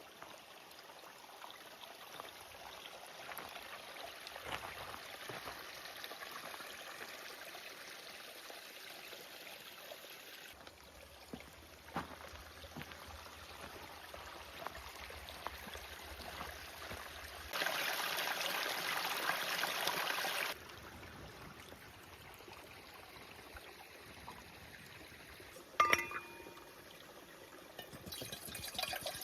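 Mountain stream running: an even rush of water that jumps abruptly in level several times, loudest for about three seconds two-thirds of the way through. A single short clink about 26 s in.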